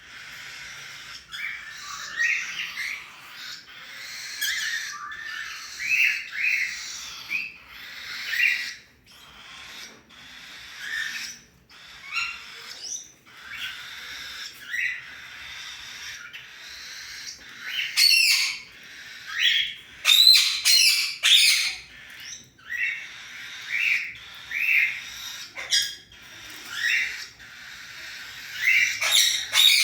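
Cockatiel chicks calling: a continuous rasping chorus with repeated calls every second or so, and louder, sharper squawks about two-thirds of the way through and again near the end.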